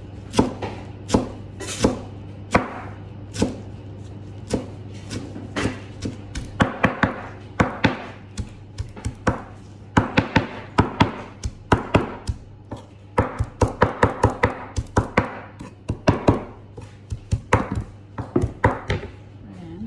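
Kitchen knife chopping fresh coriander leaves, its blade knocking on the cutting surface in irregular runs of quick strokes, over a steady low hum.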